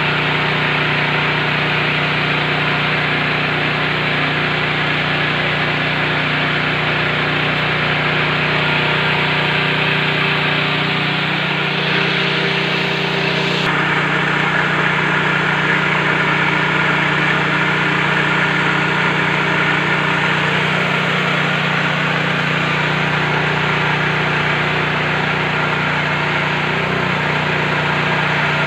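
KD 500 WG portable mini rice mill running steadily while milling paddy: a constant low machine hum with a dense, even rushing noise of grain passing through the huller and polisher.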